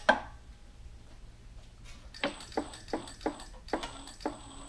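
Electric bead roller running slowly in reverse with a sheet-metal panel fed between its dies, after a single knock at the start. From about two seconds in there is a faint high whine with short regular clicks, about three a second.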